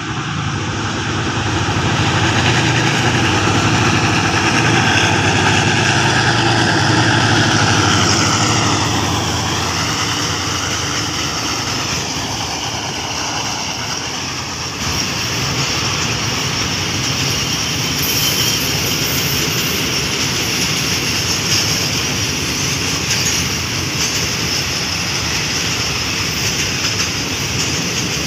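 Container freight train passing close by. The diesel locomotive's engine grows loudest and drops in pitch as it goes past about nine seconds in, then the long string of container flatcars rolls by with a steady rumble of wheels on rail and occasional clicks.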